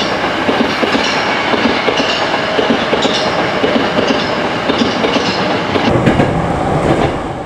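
Hankyu Kyoto Line electric train running at speed, its wheels clattering over rail joints and points in many irregular clicks. A deeper rumble builds near the end.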